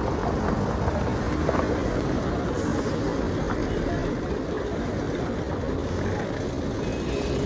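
Street traffic noise: vehicle engines and tyres running steadily, with no single vehicle standing out.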